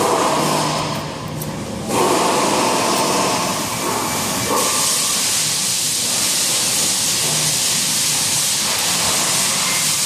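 Loud, steady hiss that dips briefly about a second in, comes back about two seconds in, and turns brighter and fuller from about four and a half seconds on.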